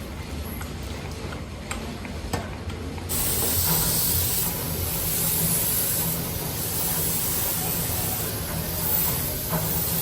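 A loud, steady hiss of a spray or gas jet comes on suddenly about three seconds in, over a low, steady machine hum. A few light clicks come before it.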